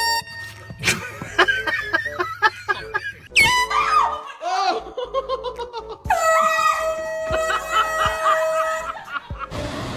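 Laughter and excited shrieking from people just startled by an air horn. A long held air-horn blast runs from about six to nine seconds in.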